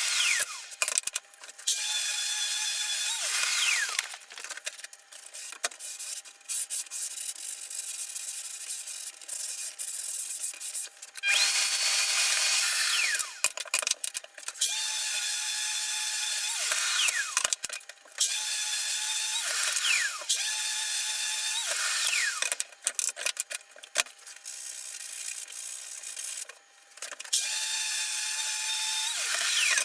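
Cordless drill-driver driving screws into plywood in repeated runs of one to three seconds, its motor whining steadily, then falling in pitch as it spins down at each stop.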